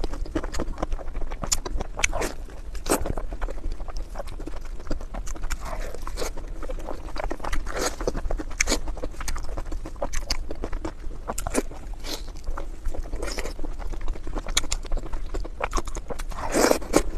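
Close-miked wet chewing and lip-smacking of someone eating a chewy, saucy dish, with many sticky mouth clicks. A louder slurp comes near the end as she sucks a piece in.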